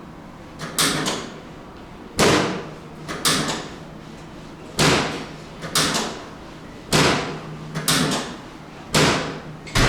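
A series of about nine sharp knocks at uneven gaps of roughly a second, each dying away over about half a second, over a faint steady low hum.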